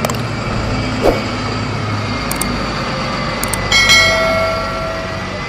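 Double-decker bus driving past in street traffic, its engine a steady low hum under the road noise. Just under four seconds in, a ringing tone starts sharply and fades over a second or so.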